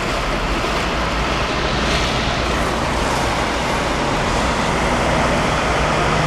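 Steady rush of road traffic noise, with an engine hum coming in near the end.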